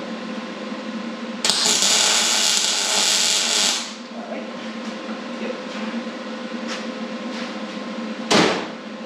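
MIG welder laying a tack weld on a steel roll-cage tube: a loud, steady arc crackle lasting about two seconds, starting about a second and a half in. A short loud whoosh near the end, over a steady shop hum.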